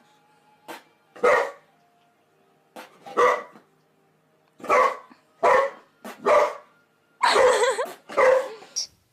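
A dog barking repeatedly, about eight loud barks at uneven gaps of roughly a second, the longest near the end.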